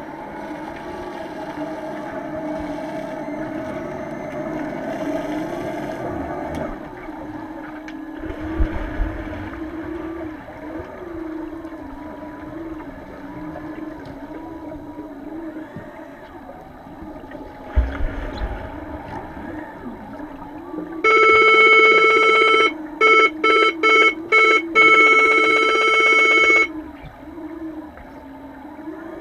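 Underwater signal horn of an underwater rugby game, heard underwater: a loud buzzing tone for about five and a half seconds, broken by several quick gaps, over a steady low hum of the pool. Two low thuds come earlier, about 8 and 18 seconds in.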